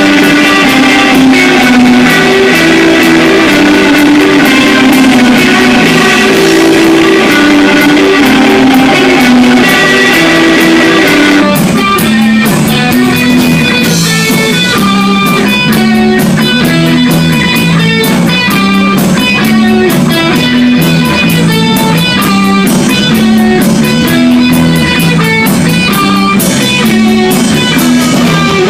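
Live rock band playing an instrumental passage, loud: electric guitars over bass and drums. About eleven seconds in, the dense sustained wash gives way to cleaner, separately picked guitar notes in a steady rhythm.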